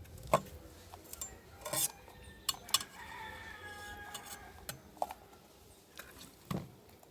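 Scattered light clinks and knocks of utensils and dishes, with a rooster crowing faintly about three seconds in.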